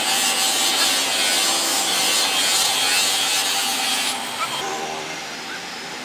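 Steady hissing rubbing noise of a plastic headlight lens being worked over, which drops away sharply about four seconds in.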